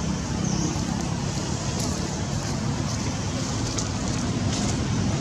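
Steady low rumbling background noise, even throughout, with a few faint high ticks.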